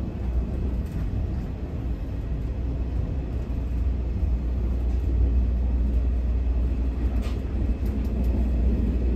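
Steady low rumble inside a moving passenger coach of the steam-hauled SL Hitoyoshi train, from its wheels running on the rails, with a few faint clicks.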